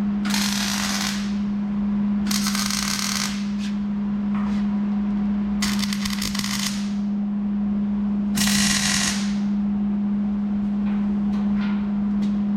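Arc welder laying four short tack welds on steel framing, each about a second of crackling, with pauses between them. A steady low hum runs underneath.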